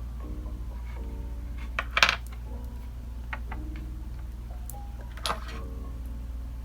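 A few light clicks and knocks of small hard objects set down on a tabletop, the loudest about two seconds in and another a little after five seconds. Soft background music plays under them.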